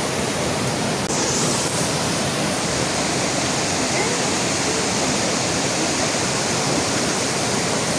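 Heavy rain falling beside a rushing river: a dense, steady hiss of water.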